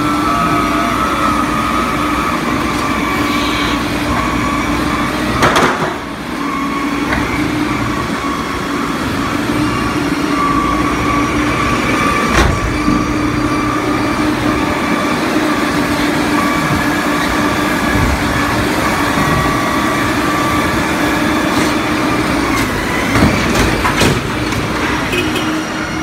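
Doosan forklift running with a steady whine, with sharp knocks about five seconds in, around the middle and near the end.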